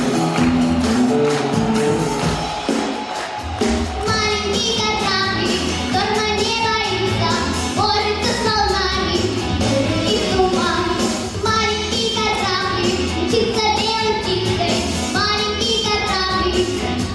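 A child's voice singing a pop-style children's song over a backing track with a steady bass beat; the first few seconds are instrumental, and the singing comes in about four seconds in.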